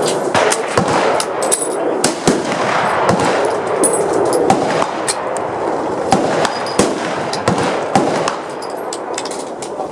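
Gunfire from rifles along a firing line: many sharp shots at uneven intervals, several a second at times, over a steady noisy background.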